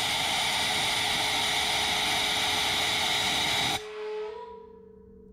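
Compressed air from a shop airline blowing into an intake port of a Jaguar XK cylinder head: a loud, steady hiss that cuts off abruptly about four seconds in. The air is pushed in while the combustion chambers are filled with water, to check the valve seats for leaks.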